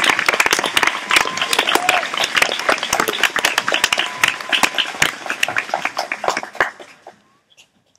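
Audience applauding, the clapping thinning out and dying away about seven seconds in.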